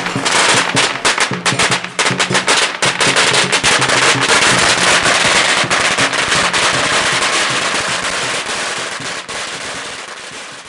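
A string of firecrackers crackling in a rapid, continuous run over music, fading away near the end.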